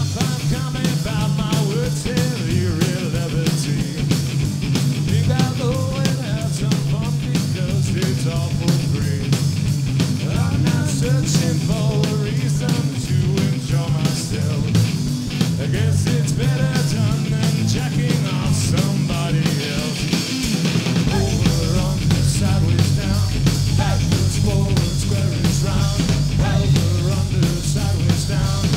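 Live rock band playing loudly: distorted Fender Stratocaster electric guitar, electric bass and drum kit. About two-thirds through, the bass drops to a deeper register.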